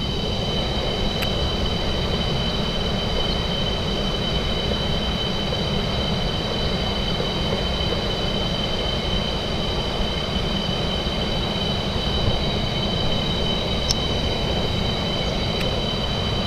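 Steady rushing of a rocky jungle stream running over small rapids, with two steady high-pitched tones over it and a few faint ticks.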